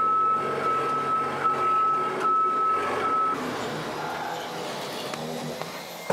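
Scissor lift's motion alarm sounding one steady high tone over the low hum of its drive motor while the platform moves. Both cut off about three seconds in, leaving quieter background noise.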